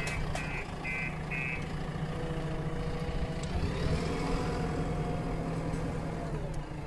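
JCB 3DX backhoe loader's diesel engine running steadily under work, with a reversing alarm beeping about twice a second that stops about a second and a half in. A steady whine rises over the engine from about two seconds in.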